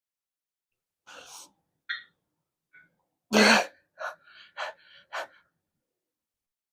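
A person's short, forceful breaths during exercise: a few sharp breaths, one loud burst of breath about halfway through, then three quick exhales in a row.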